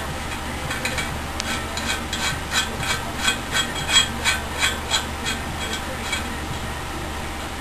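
Metal parts of a BMX bike's headset being worked with a tool, giving a steady run of small metallic clicks, about three a second, that stops about two thirds of the way through, over a low steady hum.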